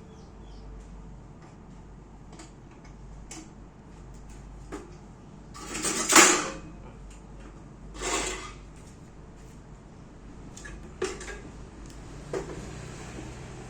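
Handling noises of objects being moved about: scattered light clicks and knocks, with two louder noisy sounds, each lasting about half a second, around six and eight seconds in.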